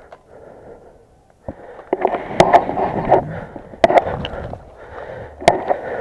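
Heavy breathing and gear rustling close to the microphone, broken by about five sharp clicks, two of them close together near the middle.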